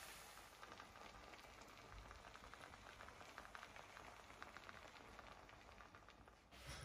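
Faint crackling sizzle of stir-fried chicken chow mein in a wok, its burner just switched off.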